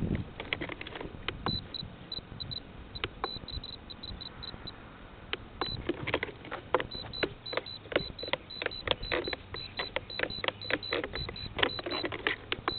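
Short bursts of whirring and clicking from an RC jet's small servos driving the control surfaces back and forth.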